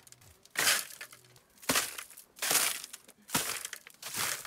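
Scraping of a tool working wet concrete around a perforated drain pipe: about five short scrapes, roughly one a second.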